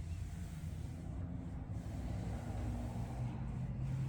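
Steady low machine hum, with no distinct cracks or knocks.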